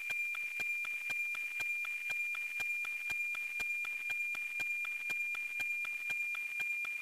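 NOAA-19 weather satellite's APT image signal received on an RTL-SDR: a steady high tone with a regular ticking at about four ticks a second, the line-sync pulses of the picture transmission. The signal comes through clear and strong over light hiss.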